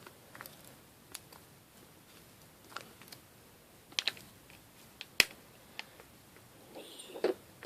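Scattered light clicks and taps from hands putting I-Clay into a mixing tub, the sharpest a little past five seconds in.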